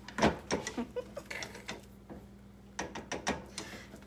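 A whisk beating thick porridge in a metal saucepan, a quick run of clacks and scrapes against the pan, a short pause about halfway, then more.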